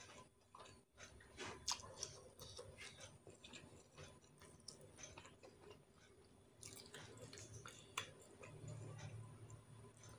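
Quiet close-up mouth sounds of a person chewing food, with many small scattered clicks.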